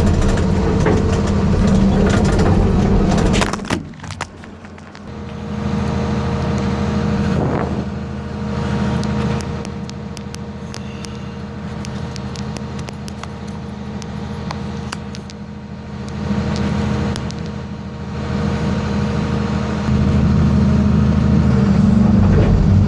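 John Deere 690C excavator's diesel engine running under the operator, heard from inside the cab. Its note drops sharply about four seconds in, rises and falls as the hydraulics are worked, and comes back up to full near the end, with a few sharp clicks along the way.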